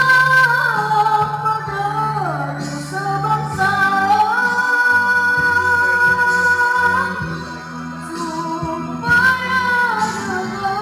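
A boy singing into a microphone with musical accompaniment, holding long steady notes and sliding through ornamented turns between them.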